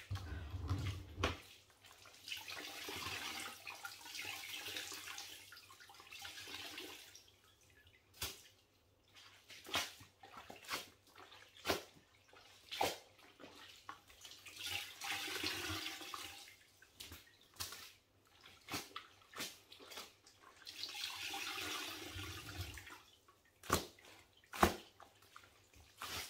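Water pouring and splashing into a mop bucket in three spells as soaked towels are wrung out over it, with dripping and scattered sharp knocks and clicks in between.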